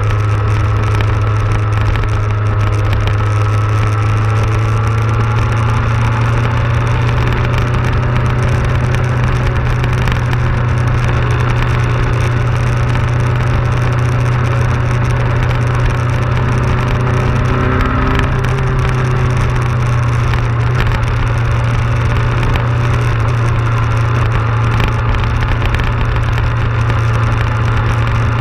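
Motorcycle engine running at a steady cruise, a constant low drone, mixed with rushing wind and road noise on a bike-mounted camera.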